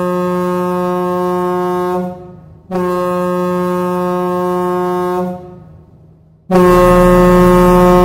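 Hockey arena goal horn sounding in long, deep, steady blasts. One blast ends about two seconds in, a second runs from about three to five seconds, and a louder third begins about six and a half seconds in.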